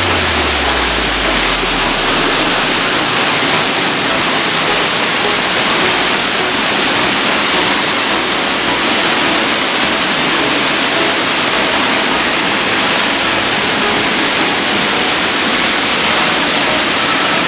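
Waterfall in a rocky gorge: a loud, steady rush of falling water with little bass.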